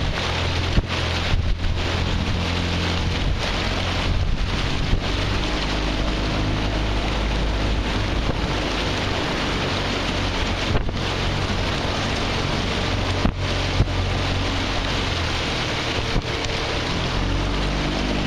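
Small launch's outboard motor running steadily at low speed, a constant low hum, mixed with wind buffeting the microphone.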